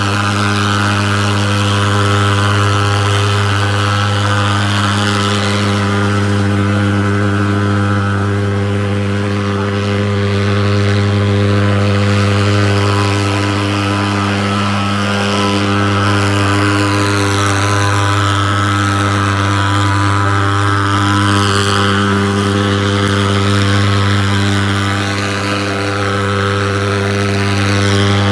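Portable thermal fogger's pulse-jet engine running steadily while it blows out insecticide fog: a loud, even buzzing drone built on a strong low hum, with a hiss over it.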